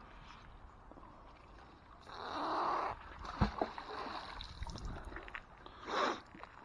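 Water splashing in a short burst about two seconds in, then a sharp knock with a few lighter clicks, and another brief splash near the end.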